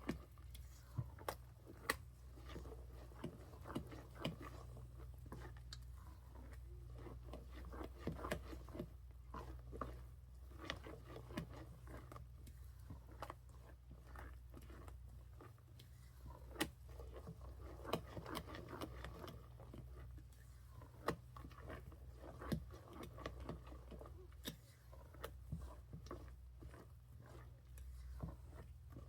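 Crisp rice cereal being stirred into a sticky melted marshmallow and peanut butter mixture: irregular crunching and scraping, with frequent sharp clicks of the spoon against the pot, over a steady low hum.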